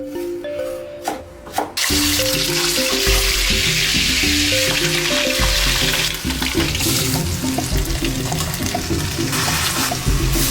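Background music with a steady beat. About two seconds in, a loud, steady rushing hiss starts under it and holds.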